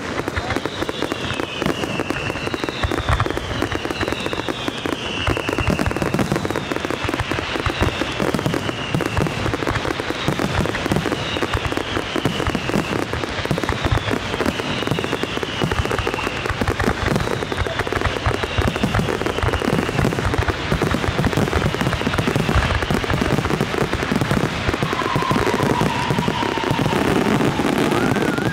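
Fireworks display going off in a dense, continuous stream of rapid pops. Through the first half, short falling whistles sound about once a second.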